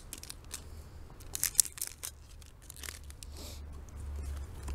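Foil wrapper of a Pokémon TCG booster pack being torn open and handled, a series of short rips and crinkles. A low rumble grows louder near the end.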